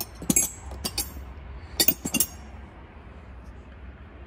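Chrome steel combination wrenches clinking against each other and the toolbox drawer's wrench rack as they are handled and pulled out: a few quick clusters of sharp metallic clinks over the first two and a half seconds.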